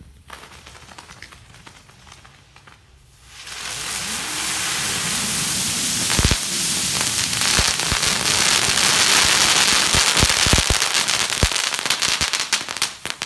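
A string of about sixty crackling ground bloom flower fireworks going off together: a dense, loud hissing crackle starts suddenly about three and a half seconds in and keeps up, with a few sharp pops mixed in.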